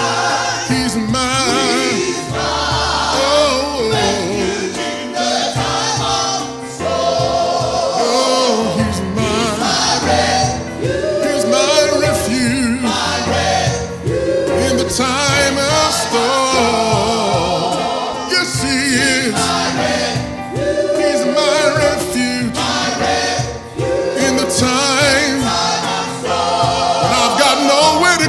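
Gospel choir singing with band accompaniment, voices swelling in sustained phrases with vibrato.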